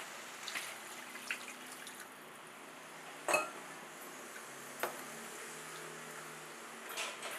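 Steel ladle stirring chicken gravy in a cooking pan: soft scraping and liquid sounds, with a few metal clinks against the pan, the loudest a little past halfway.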